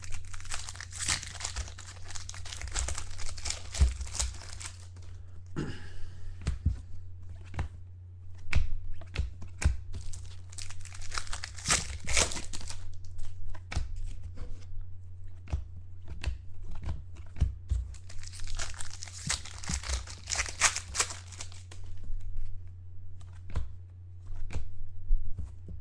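Trading-card pack wrappers being torn open and crinkled, in three longer rustling stretches with sharp clicks and taps of cards being handled in between.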